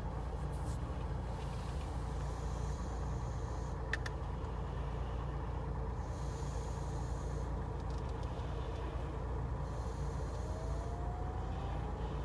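Lada Niva Urban's newly replaced electric fan motor and fan running steadily, with a low rumble underneath, a single click about four seconds in and a faint rising whine near the end.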